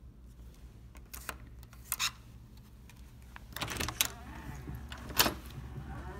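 A few sharp clicks and knocks, the loudest near the end, with a rustling stretch about halfway through, over a steady low hum: handling noises such as doors and belongings being moved about.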